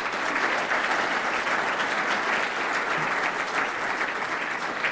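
Audience applauding steadily, a dense clatter of many hands clapping at once.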